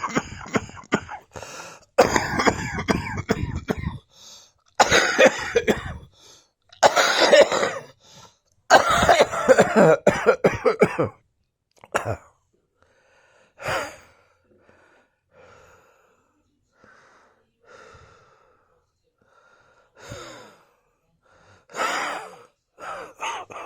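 A person coughing hard in several fits over the first eleven seconds or so, then drawing quieter wheezing breaths, with the coughing starting up again near the end.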